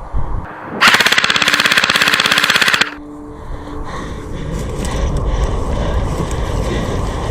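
Airsoft gun firing one full-auto burst of about two seconds: a rapid, even rattle of shots that cuts off sharply.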